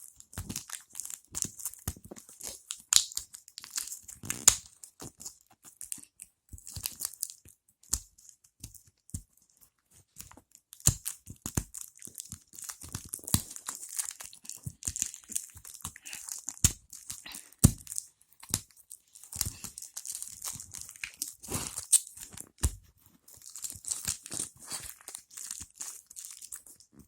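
Plastic packaging of a phone battery being crinkled and torn open by hand, in irregular bursts of crackling with sharp clicks and snaps.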